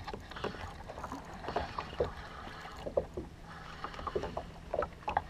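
Small irregular knocks and water lapping around a kayak, with handling sounds from the rod and reel, while a hooked fish is fought on a bent spinning rod.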